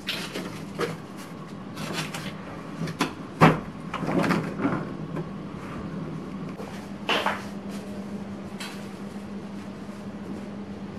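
Household items and doors being handled during tidying: scattered knocks and clicks, the loudest about three and a half seconds in, over a steady low hum.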